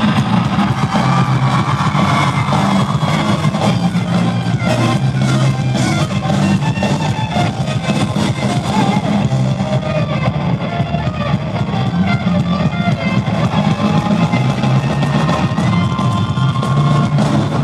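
Rock band playing live and loud, electric guitar and drum kit driving an instrumental passage with no singing.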